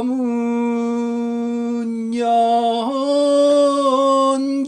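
A single voice singing a pansori-style line in long, drawn-out held notes, the word '검은' ('black') stretched out. There is a short break about two seconds in, then the pitch steps up to a higher held note for the rest of the line.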